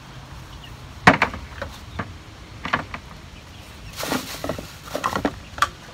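Hollow plastic knocks and clicks of 2-inch PVC pipe and fittings being handled and pushed together, the loudest about a second in, with a short scraping rub about four seconds in.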